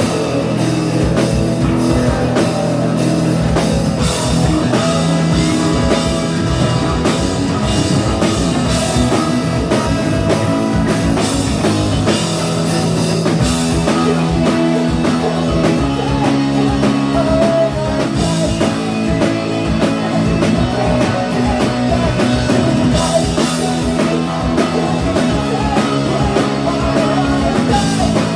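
Live ska-punk band playing loud, with electric guitar and a drum kit keeping a steady beat.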